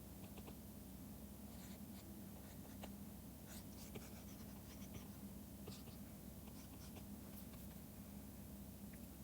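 Faint scratching and tapping of a stylus pen on a drawing tablet, in short irregular strokes, over a steady low hum.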